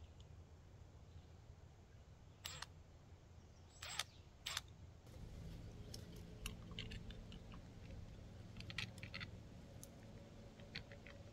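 Faint clicks and knocks of a plastic driveway-alarm sensor being handled and fitted onto its post. There are three sharp clicks in the first half, then scattered small clicks over a faint low hum.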